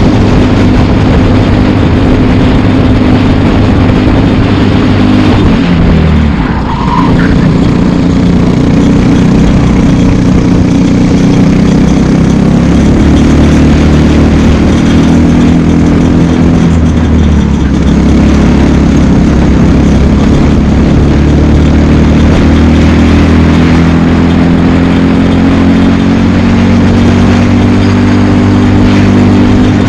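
Briggs & Stratton LO206 single-cylinder four-stroke kart engine running hard at racing speed, heard from onboard and very loud. The engine note drops about six seconds in and again around seventeen seconds, then climbs back up each time.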